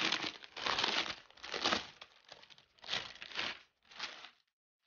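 Clear plastic wrapping crinkling in four bursts as it is pulled off a foam tablet case, then stopping suddenly near the end.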